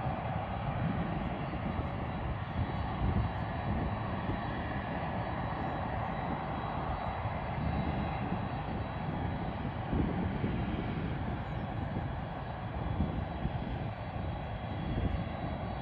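Boeing 747-400ER's four GE CF6 turbofan engines at taxi power heard across an airfield: a steady jet whine and rush over an uneven low rumble.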